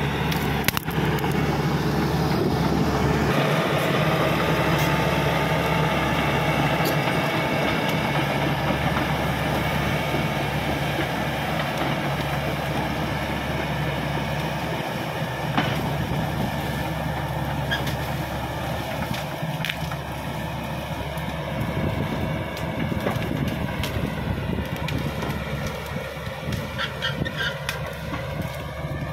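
Caterpillar D5K XL bulldozer's diesel engine running steadily under load, with a few sharp clanks scattered through; the engine note shifts near the end.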